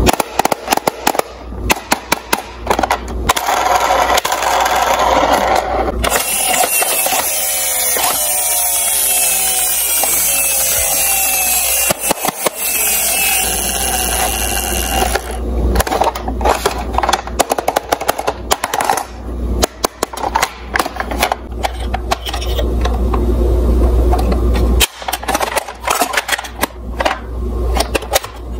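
Plastic toy ambulance being handled: repeated clicks, knocks and rattles of its plastic parts. Through the middle, a loud whir falls steadily in pitch, as of its wheels or motor winding down.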